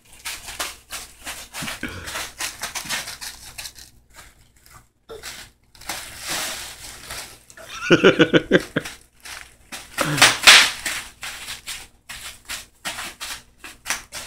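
Bubble wrap crackling and popping in a string of sharp clicks as a toddler walks barefoot across it. A brief voice sounds about eight seconds in, and a louder rustling burst follows a couple of seconds later.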